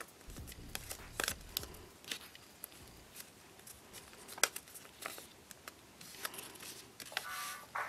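Origami paper crinkling and crackling in the hands as it is folded and creased, a scatter of short sharp paper clicks.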